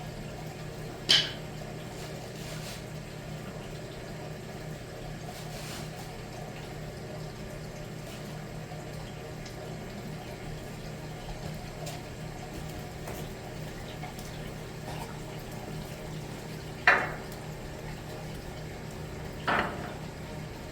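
Water running steadily in a boiler, with a few sharp metal clinks: a loud one about a second in, a faint one later, and two more near the end.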